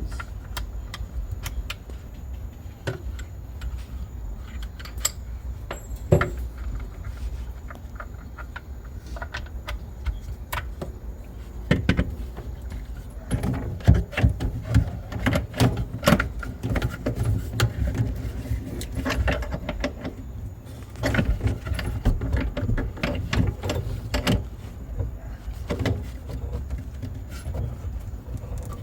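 Clicks and clinks of a faucet-nut installation tool and supply hose fitting being worked as a nut is tightened up onto the faucet's underside. The knocks come in quick irregular runs, sparse at first and much busier in the second half.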